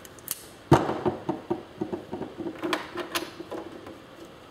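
Hand tools clicking and knocking against an old typewriter while it is taken apart. One sharp knock comes first, then a quick run of irregular clicks and taps.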